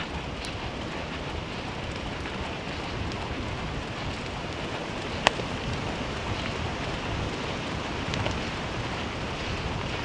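Steady rolling rumble and rattle of a dryland scooter's tyres on a dirt and gravel track at speed, with wind on the microphone. There is a single sharp knock about five seconds in.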